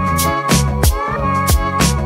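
Background music with a steady drum beat, about two hits a second, over a bass line.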